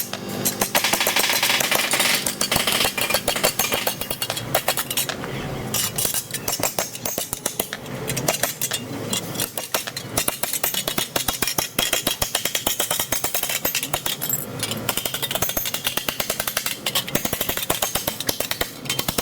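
Power tool hammering rapidly with a dense, rough rattle throughout, typical of body repair work on a damaged car panel.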